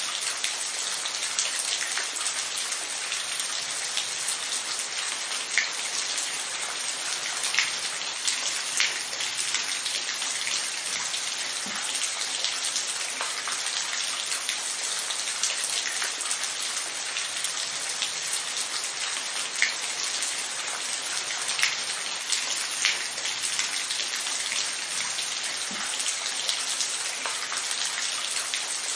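Steady rain falling on a surface, an even hiss of rain with scattered louder individual drops ticking through it.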